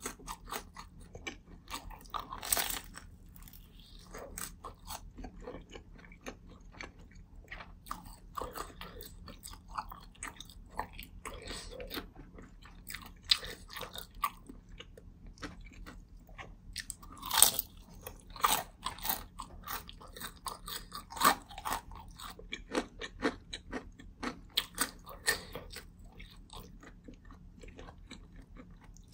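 Close-miked biting, crunching and chewing of a crisp deep-fried dumpling (twigim mandu), with sharp crunchy bites scattered throughout; the loudest comes about 17 seconds in.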